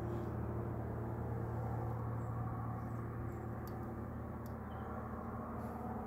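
Steady low background rumble, with two faint sharp clicks about halfway through and a few faint, short high chirps.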